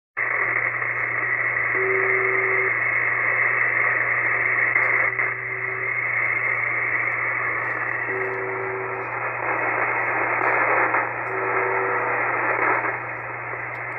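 The Russian shortwave "Buzzer" (UVB-76) on 4625 kHz, heard as short buzzes of just under a second, about every three seconds, over steady shortwave static and a low hum. It plays from a web SDR receiver through a small radio's speaker over Bluetooth.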